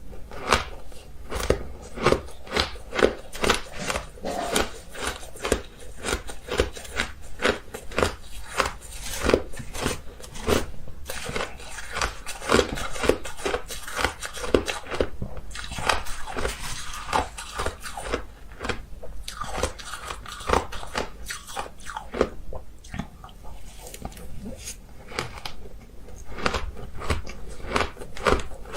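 A person biting and chewing ice, a long run of sharp crunches coming about twice a second.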